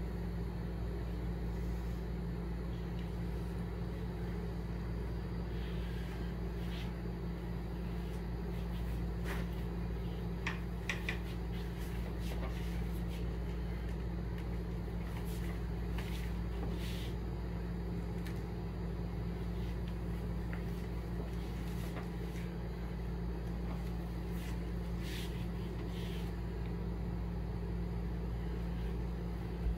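Steady low room hum, with scattered sharp clicks and light knocks from a camera stabiliser rig being handled and adjusted, bunched in a few short clusters.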